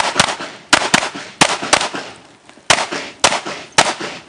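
Semi-automatic pistol firing about ten shots in quick, uneven strings, with a pause of about a second midway, each crack trailing into a short echo.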